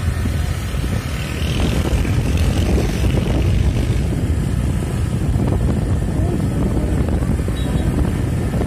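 Wind buffeting the microphone on a moving Honda AirBlade motor scooter, with the scooter's engine and road noise underneath.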